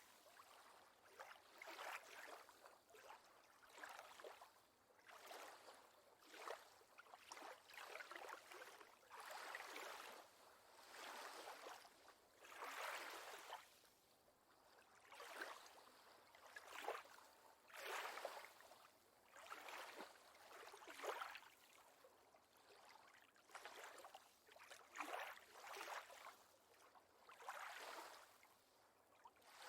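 Lake water lapping softly, in irregular small splashes every second or two.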